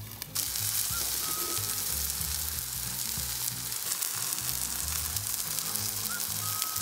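Flour-and-egg-dredged pork chops sizzling steadily as they fry in oil in a nonstick pan, with small pops.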